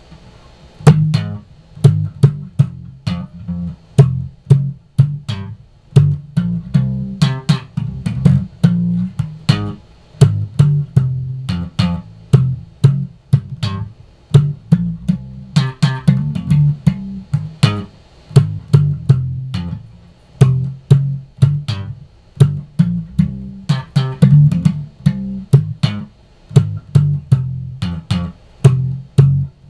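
Squier Affinity Precision Bass played slap style with its tone knob fully up: rhythmic thumb slaps and popped strings over ringing low notes, starting about a second in.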